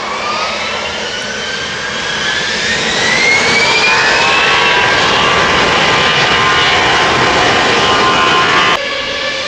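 Jet airliner engines spooling up to takeoff power: a whine rising in pitch over the first few seconds over a rough roar, then holding steady at full thrust. Near the end the sound cuts off abruptly and a new rising whine begins.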